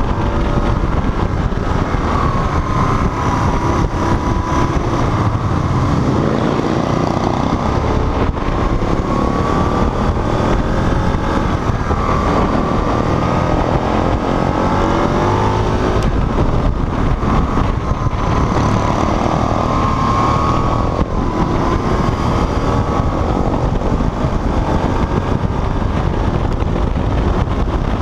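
Motorcycle engine rising and falling in pitch as the rider accelerates and eases off through the bends, under heavy wind noise on the microphone.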